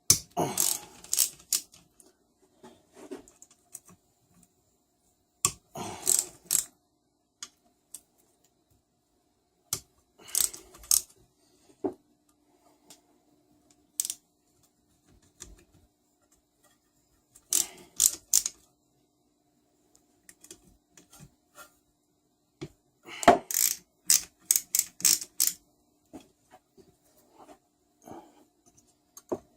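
Hand socket ratchet clicking in five short rapid runs as bolts are backed out of a Tecumseh small engine's side cover, with light metal clinks between.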